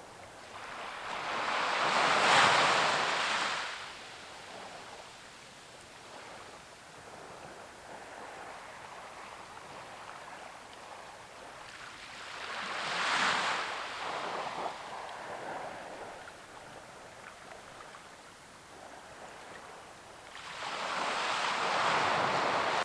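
Waves breaking on a shore: three swells of surf, about two seconds in, around the middle and near the end, each rising and falling away over a steady low wash.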